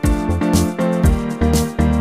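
Background music with a steady beat: bass notes and drum hits about twice a second under sustained chords.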